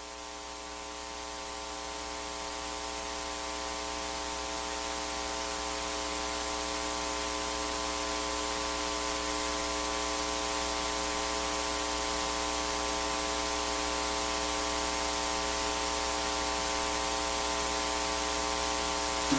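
Steady electronic hiss with a constant electrical hum and buzz, slowly growing louder.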